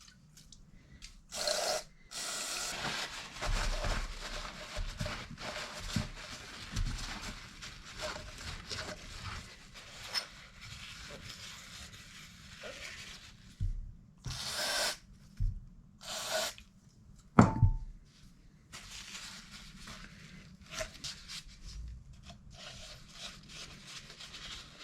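Rubbing and scraping as a brake master cylinder is cleaned out by hand, with a few short hissy bursts and one sharp knock that rings briefly about 17 seconds in.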